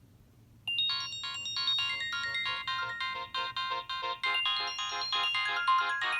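Nokia 6681 mobile phone playing one of its built-in polyphonic ringtones through its loudspeaker, starting suddenly less than a second in: a quick run of synthesized notes that keeps going.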